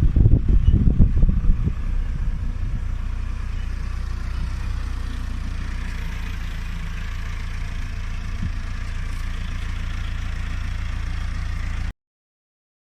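Tractor engine running steadily, louder and uneven for the first second or two. The sound cuts off suddenly near the end.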